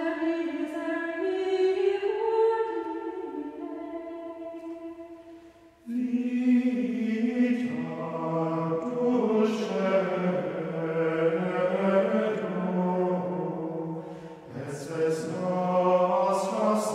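Background music of choral singing in long held notes, with lower voices coming in about six seconds in.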